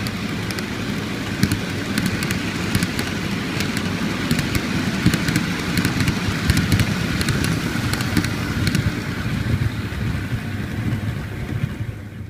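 N-gauge model train running along the track: a steady rumble of the wheels and motor, with a run of light clicks as it passes over the rail joints, fading just before the end.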